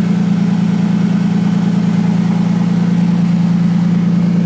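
Nissan RB20DET turbocharged inline-six engine idling steadily, an even, unchanging hum.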